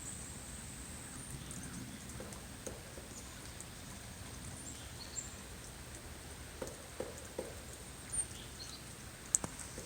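Faint, unexplained knocks over a quiet outdoor background: single knocks at first, then a run of three evenly spaced about two-thirds of the way in, and two sharp clicks near the end. The recordist thinks they could be a woodpecker, but too slow for one.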